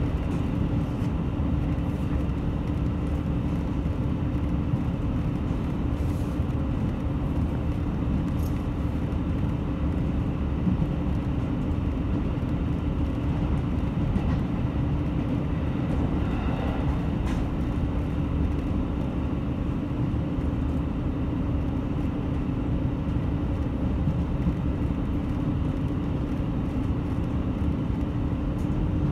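KiHa 75 diesel railcar running steadily at speed, heard from inside the passenger car: a constant engine and transmission hum over the rumble of wheels on rail, with a few faint ticks.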